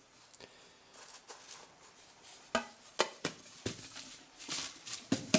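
Light handling noises: a few small sharp clicks and knocks, about half a second apart from a little past halfway, as a metal tin of charcoal pieces is closed and set down on the workbench, with soft rustling near the end.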